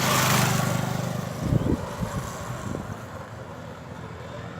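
A motor vehicle's engine running close by, loudest in the first second and then easing off, with a few low thumps about two seconds in.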